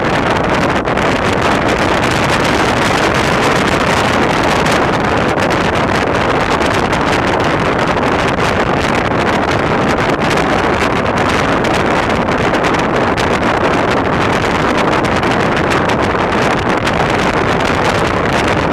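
Loud, steady wind noise on the microphone of a moving car.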